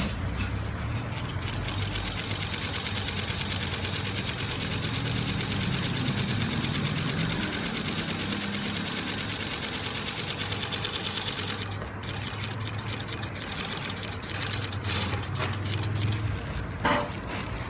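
Industrial wetsuit sewing machine stitching at speed: a fast, even mechanical rattle, with a few short breaks in the last several seconds.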